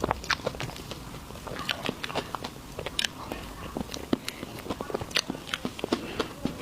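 Close-miked chewing and biting of desserts, with many sharp, irregular wet clicks and smacks of the mouth.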